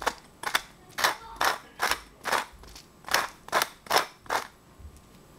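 Pepper mill grinding black pepper with about ten short crackly twists, roughly two a second, stopping near the end.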